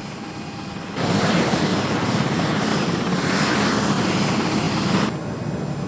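Helicopter engine and rotor running: an even, loud rushing noise with a steady high whine. It comes in about a second in and stops suddenly about five seconds in.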